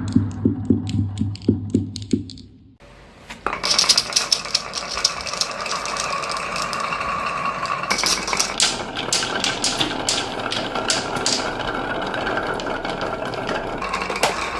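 Marbles clicking and rolling along a toy marble run. Separate clicks over a low hum give way to a short lull about three seconds in, then many marbles clatter together over a continuous rolling sound.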